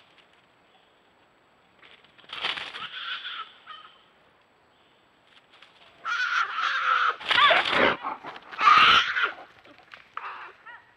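American black bear cub squalling in distress: a short burst of calls about two seconds in, then a louder, longer run of bawling cries from about six seconds to about nine and a half.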